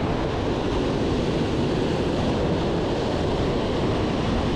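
Steady wash of waves on a sandy beach, with wind rumbling on the microphone.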